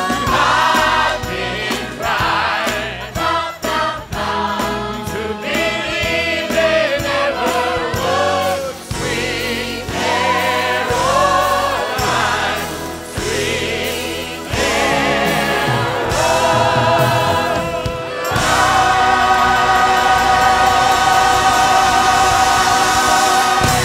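A live musical number: a lead singer and a chorus of voices sing with vibrato over a band. From about three quarters of the way through they hold one long final chord, which cuts off at the very end.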